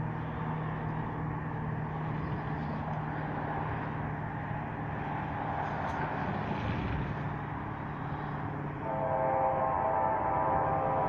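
Approaching CSX freight train: a steady rumble with a low hum, then about nine seconds in the locomotive's air horn starts sounding a held multi-note chord as it nears the grade crossing.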